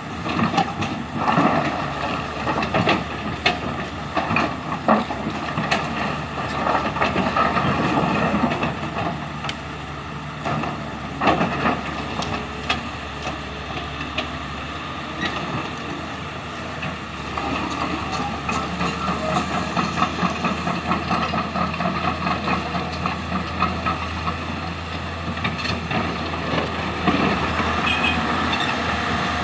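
Hydraulic excavators working a load of stone and sand: diesel engines running steadily, with frequent sharp knocks and clatter of rock and metal throughout.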